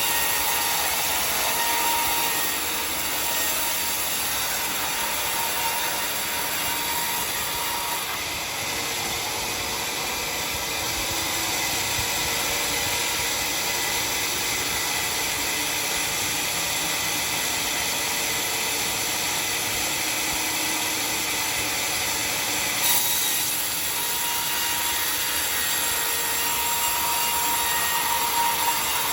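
Homemade sawmill sawing through dry, iron-hard acacia wood: a steady, dense noise of the blade running in the cut.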